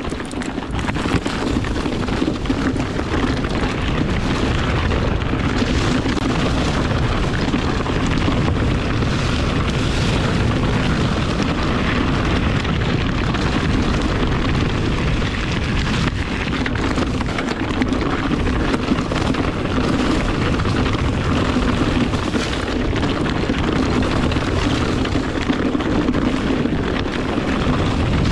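Kona Process 153 full-suspension mountain bike ridden fast down a dirt and leaf-covered singletrack: a steady rushing roar of tyres on the trail, with constant rattling and clattering from the bike over roots and rocks.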